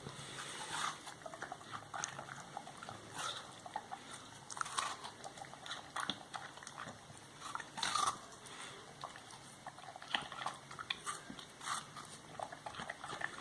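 Dogs chewing and biting into watermelon: irregular crunches and smacks, a few louder bites among them.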